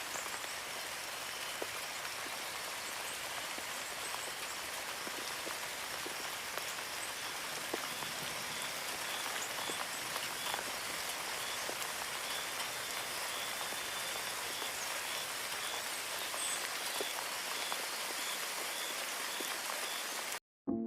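Steady rain falling, a soft even hiss with scattered drop ticks, with a faint repeated high chirp through the middle. It cuts off abruptly just before the end.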